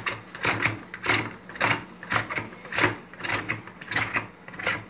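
A chocolate bar being grated on a stainless steel hand grater: repeated scraping strokes, about two a second.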